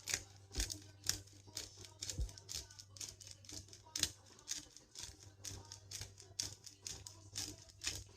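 Background music with a steady beat of about two sharp hits a second over a low bass hum.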